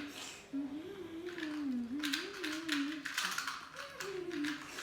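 Plastic Rubik's cube, a 2x2, being turned fast during a speed solve: a rapid, irregular run of clicks and clacks as the layers snap round. Under it runs a wavering hum whose pitch drifts up and down.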